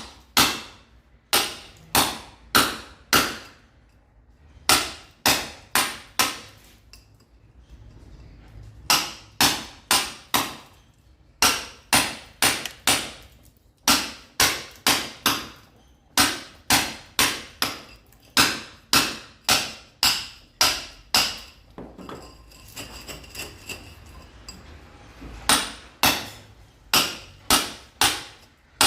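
Hammer blows breaking concrete: sharp, ringing strikes at about two a second, in runs of several with short pauses between them.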